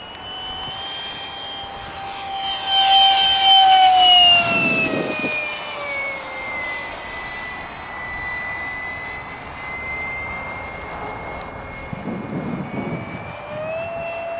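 Electric ducted fan of a Yellow Aircraft Stingray RC jet whining in a fast pass: the whine grows loudest a few seconds in, then drops in pitch as the jet goes by and moves away, and climbs in pitch again near the end.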